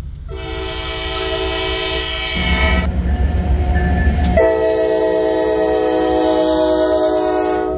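Norfolk Southern diesel locomotive sounding its multi-chime air horn in two long blasts, about two seconds apart, as it passes close by. Between the blasts the locomotive's rumble comes through.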